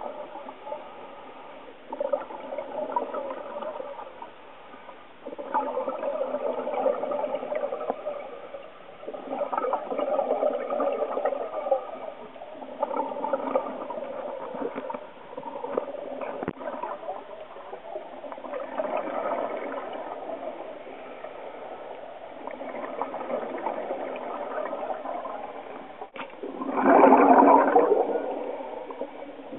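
Scuba diver's exhaled breath bubbling out of the regulator, heard underwater. The bubbling comes in gurgling bursts every three to four seconds, the loudest near the end.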